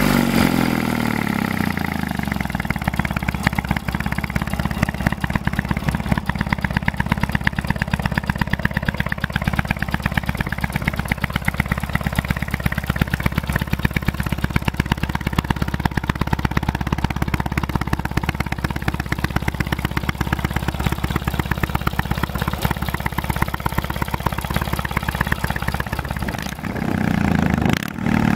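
Yamaha XS650 bobber's 650 cc parallel-twin engine running just after being kick-started: the revs drop over the first couple of seconds and settle into a steady, evenly pulsing idle. Near the end the engine revs up as the bike pulls away.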